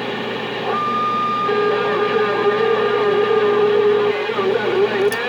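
CB radio receiver audio: the channel's static comes up with a steady hum, and a steady two-note whistle sits over it from about a second in until near the end.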